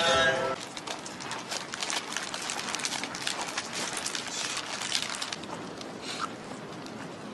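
Close-up eating sounds from a person biting and chewing bread: a dense run of small clicks and crackles that fades about five seconds in.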